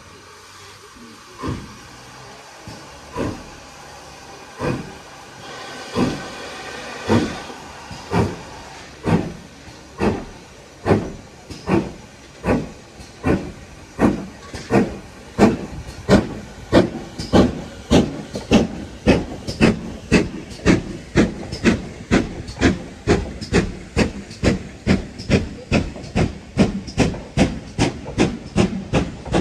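GWR 5205 Class 2-8-0 tank engine's exhaust chuffing as it pulls away under steam, with a steady steam hiss. The beats quicken from about one every one and a half seconds to about two a second as it gathers speed.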